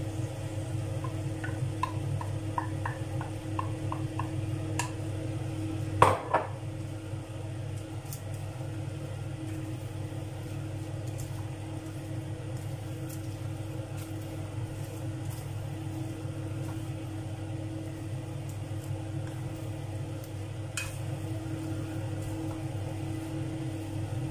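Wooden spoon stirring and scraping a mix of shredded salt cod, potato sticks and beaten egg in a frying pan, with light taps early on and one loud knock of the spoon against the pan about six seconds in. A steady low hum runs underneath.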